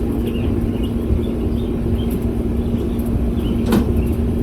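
Steady low hum and rumble, with small birds chirping and one sharp click near the end.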